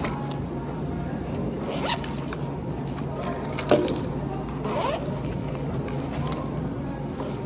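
Zipper on a fabric pouch being pulled open and shut, with handling and rustling as things are packed in, and one sharp click about halfway through.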